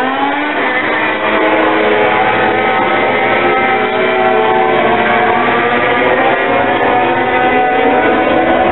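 MotoGP racing motorcycle engine at high revs, its pitch climbing about half a second in, then falling and rising again as the bike accelerates out of a corner and through the gears.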